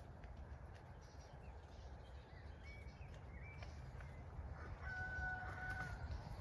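A rooster crowing once, faintly: one held call about five seconds in, after a few short high bird chirps, over a steady low rumble.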